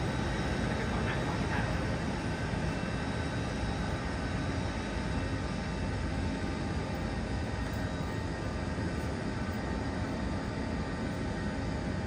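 Steady mechanical rumble with a faint steady whine from an airliner being towed by an aircraft tug.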